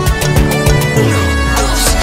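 Background music with a fast, steady beat; about halfway through, a deep bass note slides down in pitch and holds.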